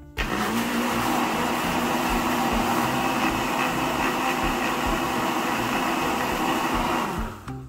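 A small countertop blender running at a steady speed, beating a liquid mixture of eggs, water and vanilla. It cuts off near the end.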